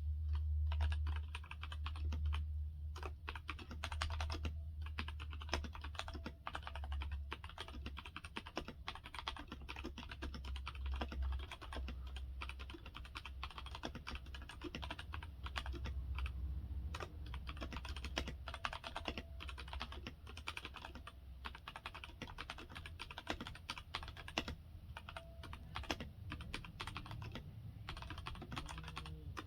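Continuous fast typing on a Huoji CQ84 mechanical keyboard with Outemu Red linear switches: a dense, irregular patter of keystrokes with brief pauses, over a low steady hum.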